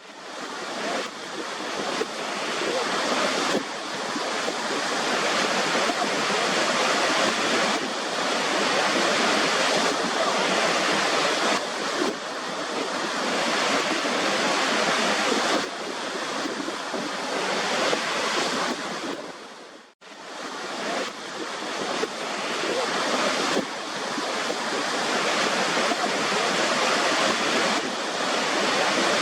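Waterfall: a steady rush of falling water with no low rumble, which cuts out for an instant about two-thirds of the way through and comes straight back.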